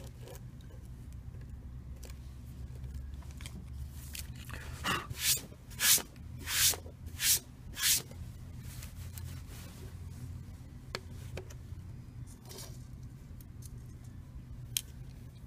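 Handling noise from a phone being reassembled: about six short, loud scraping swishes in quick succession near the middle, then a few faint small clicks, over a steady low hum.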